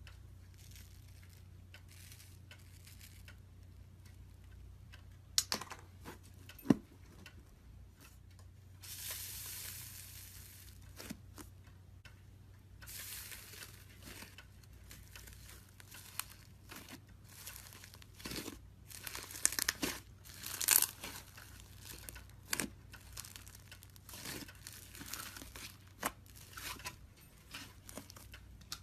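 Iceberg slime's hardened crust crackling and crunching as it is pressed and squished, in irregular bursts of sharp crackles with a longer crinkly stretch about nine seconds in. A faint steady low hum sits underneath.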